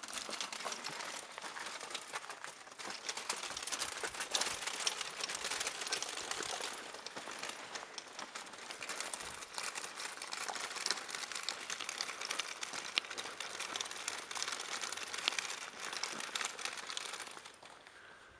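Toy doll's pram rolling over cobblestones, its small plastic wheels rattling and clattering without a break, dying away about a second before the end.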